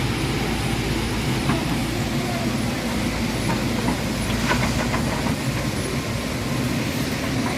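Tata Hitachi excavator's diesel engine running steadily under work, with a few light metallic clanks about halfway through.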